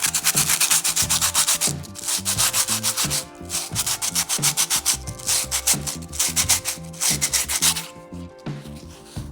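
Knife blade ground against a sand-coated CD disc on an angle grinder: abrasive rasping in several passes of a second or so each, stopping about eight seconds in.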